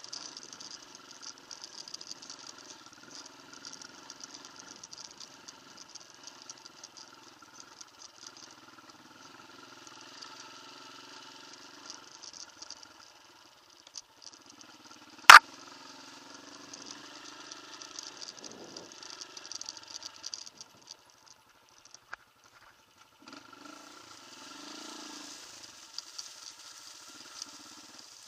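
Off-road motorcycle engine running faint and steady, dropping out briefly about halfway and again for a couple of seconds near the end. One sharp click or knock about halfway through stands out loudly above it.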